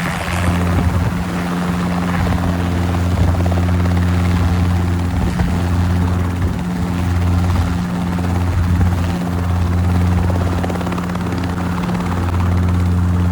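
Robinson helicopter running steadily: a constant low drone of the rotor and engine.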